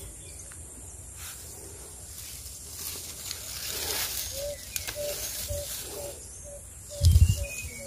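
Leaves and stems rustling as a hand pushes through dense fern and leafy undergrowth, picking plants. From about halfway, a bird repeats a short low note about twice a second. A dull thump near the end is the loudest sound.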